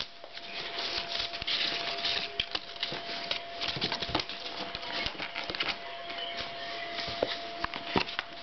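A cat playing: irregular light taps, clicks and scratchy rustling as it scrabbles and bats about, with a steady thin tone in the background.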